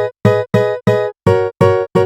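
A sampled instrument patch from the SwarPlug 4 VST playing the same pitched chord with a low bass note over and over, about three times a second. Each strike decays quickly and is cut off short.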